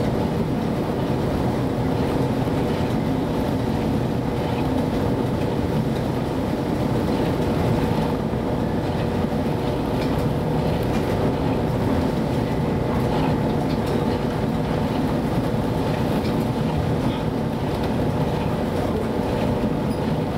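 Steady drone of a rescue and standby vessel's engines, with storm wind and sea noise over it as the ship pitches through heavy waves.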